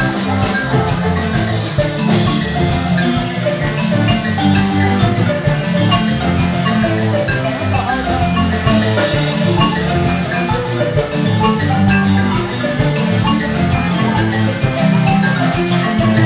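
Loud music with a mallet-percussion melody of quick short notes over drums.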